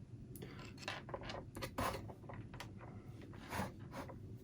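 Faint, scattered small clicks and rustles of hands handling soldering tools and small wired parts, about half a dozen brief ticks over a quiet background.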